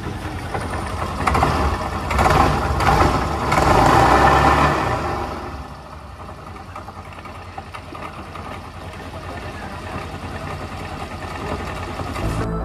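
Yamaha 勁豪125 (Axis Z) scooter engine running. It swells louder for a few seconds, then settles back to a steadier, quieter idle. The scooter's drive train has an abnormal noise being diagnosed.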